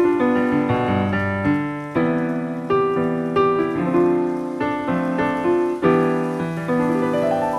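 Background piano music: notes struck and left to fade, several sounding together in a flowing melody.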